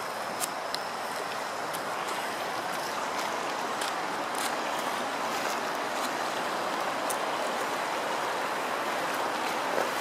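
Shallow river running over stones and riffles: a steady, even rush of water, with a few faint clicks.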